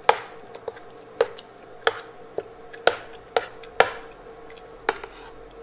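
A metal spoon clinking and scraping against a ceramic plate while scooping chickpea curry: about eight sharp, irregular clicks.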